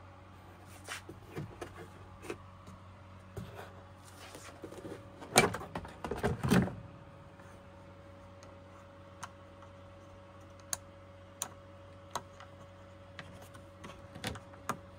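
Handling noise of an air fryer's plastic housing and door microswitch being worked by hand: scattered light clicks and knocks, with a louder burst of rubbing and clatter about five to seven seconds in. A faint steady hum runs underneath.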